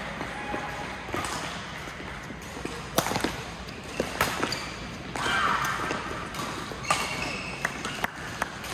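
Badminton rally: a series of sharp racket-on-shuttlecock hits a second or more apart, the loudest about three seconds in, with short squeaks of court shoes on the floor between them.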